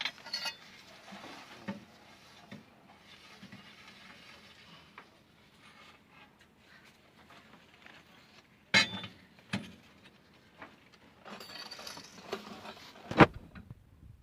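Metal tools and parts clinking and knocking during work on an excavator swing motor: scattered light clinks, two sharp knocks about nine seconds in, and a loud knock near the end.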